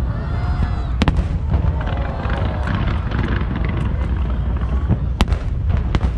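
Aerial fireworks shells bursting: a sharp bang about a second in and two more near the end, over a steady low rumble.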